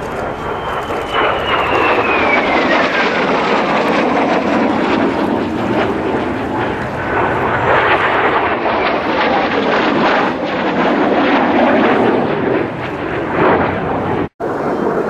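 Kawasaki T-4 jet trainer flying past: its turbofan whine falls steadily in pitch over the first few seconds as it goes by, leaving a broad jet roar that carries on. The sound drops out for an instant near the end.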